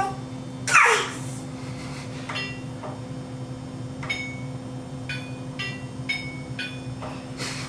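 Electronic beeps from a washing machine's control panel as buttons are pressed: short clear tones, several about half a second apart at changing pitches, like a little tune. Under them is a steady low hum. About a second in, a baby gives a short high squeal that falls in pitch.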